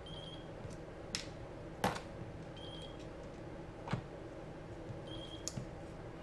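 FrSky Taranis Q X7 transmitter beeping in bind mode: one short high beep about every two and a half seconds. A few sharp clicks and taps from hands handling small parts and wires on the drone frame.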